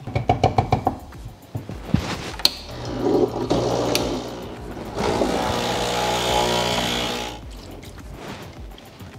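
Background music, and from about three seconds in a Breville Dual Boiler espresso machine's pump running with water rushing for about four seconds before it stops.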